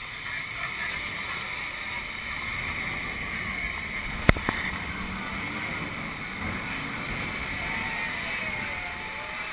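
Amphibious tour truck driving down into a river, water splashing and rushing along its hull, with wind buffeting the microphone. A single sharp click a little over four seconds in.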